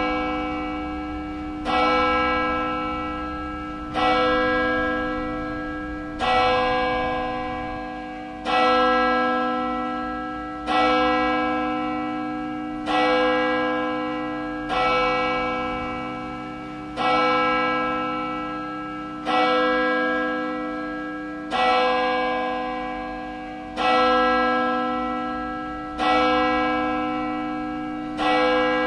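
A single church bell tolling at a slow, even pace. It is struck about every two and a quarter seconds, each stroke ringing on and fading before the next.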